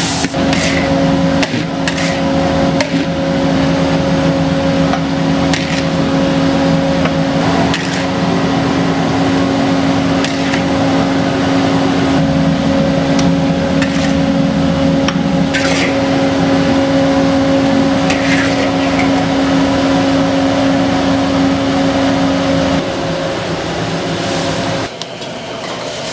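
Steady roar of a commercial wok station, its burner and extractor running, with a metal spatula scraping and knocking against the wok every few seconds as fried rice is stir-fried and scooped out. The roar cuts off suddenly near the end.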